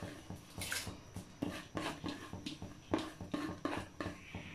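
Fingers tapping and scraping a plastic bowl to knock crushed rice out into a pot of simmering milk: a string of irregular light taps and scrapes.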